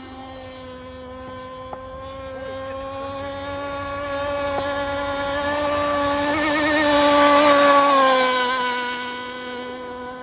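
Gas-powered RC boat engine running at a steady high speed out on the water. It grows louder as the boat passes close, loudest about three quarters of the way through, then fades with a slight drop in pitch as it moves away.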